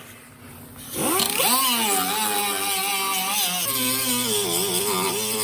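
Hand-held power grinder spinning up about a second in and grinding down welded steel plate, with a steady whine and a bright hiss. Its pitch sags and wavers several times as it is pressed into the metal.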